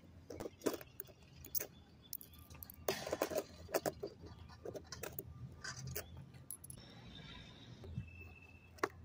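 Irregular metallic clicks and clinks of small hardware being handled during skateboard wheel and bearing maintenance: a skate tool working the axle nuts, and nuts, washers and bearings clattering together.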